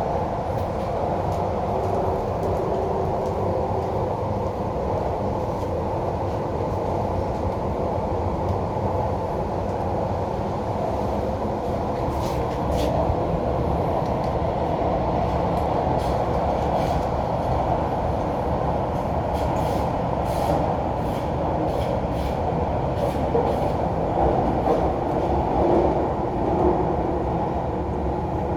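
MTR Kwun Tong Line Q-Train running at speed between stations, heard from inside the car: a steady rumble of wheels on rail and running gear, with scattered sharp clicks from about halfway through.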